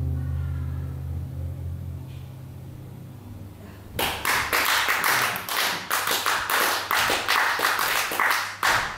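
An acoustic guitar's last strummed chord rings out and fades away. From about four seconds in, an audience applauds.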